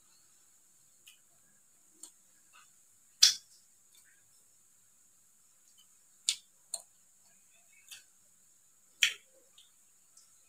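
Close-up mouth sounds of someone eating soft donut: scattered sharp wet smacks and clicks of lips and tongue while chewing, about eight in all, with the loudest about three seconds in and about nine seconds in.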